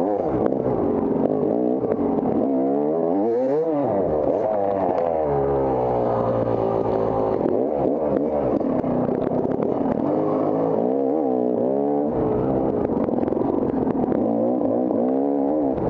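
Off-road dirt bike engine revving hard, its pitch climbing and dropping over and over as the throttle opens and closes and the gears change, with clattering from the bike over rough ground.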